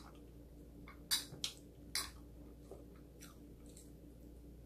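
Metal spoon clinking and scraping against a plate several times as food is scooped up, loudest about one and two seconds in, with soft chewing.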